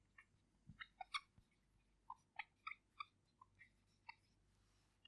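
Felt-tip marker squeaking faintly on a whiteboard: a string of short, separate squeaks, about a dozen, as a line of words is written.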